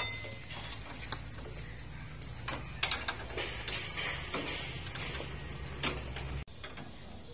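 Spanner clinking and knocking on the steel sidecar mounting bolts and bracket as they are loosened: scattered sharp metallic clicks over a low steady hum that cuts off near the end.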